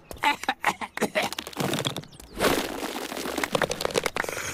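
Small balls bouncing and clattering on the ground, followed by a small group clapping in applause.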